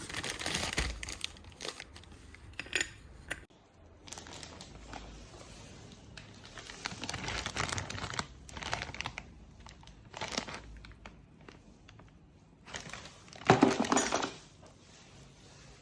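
Hands handling plastic parts: crinkling and rustling with light clinks, in several separate bursts, the loudest near the end.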